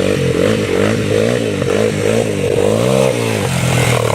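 ATV engine revved again and again, its pitch rising and falling several times in quick succession, then settling to a steadier run near the end.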